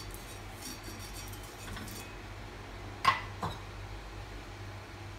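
Oil being wiped across a hot cast-iron pan with a faint rubbing hiss, then two sharp kitchenware clinks about three seconds in, the first one louder.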